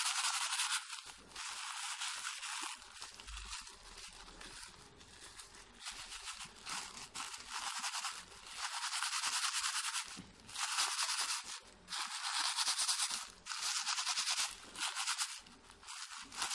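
Dried fish flake food being crushed to powder by hand inside a plastic bag: the bag crinkling and the flakes grinding in repeated bursts of rubbing.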